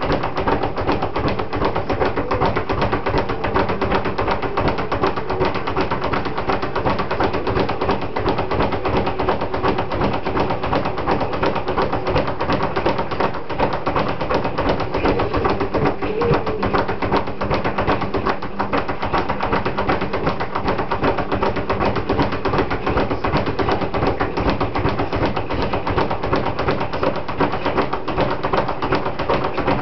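Speed bag being punched in a fast, unbroken rhythm of rebounding knocks.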